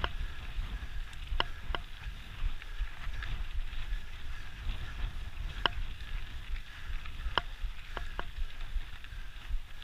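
Mountain bike ridden over a dirt singletrack, heard from the bike itself: a steady low rumble of tyres on dirt and wind noise, with sharp metallic clinks of the bike now and then, about eight of them.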